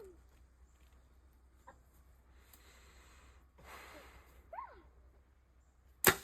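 Faint clucks from chickens in the background, then near the end a single sharp, loud crack of a bow being shot, with a smaller knock just after it.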